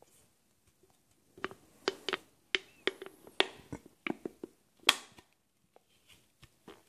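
Toddler smacking her lips while tasting ginger ale: a string of short, sharp smacks and clicks from about a second and a half in to about five seconds in.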